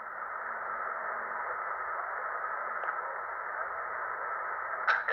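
Tecsun PL-365 portable shortwave receiver hissing steadily with band noise in single-sideband mode on the 20 m amateur band, in the gap between two stations' transmissions. A faint click about three seconds in and a short burst of noise near the end.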